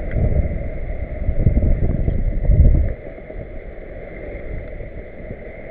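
Wind buffeting the microphone over water rushing along the hull of a Figaro sailboat under sail in a choppy sea. The buffeting drops off suddenly about three seconds in, leaving a steadier, quieter rush of wind and water.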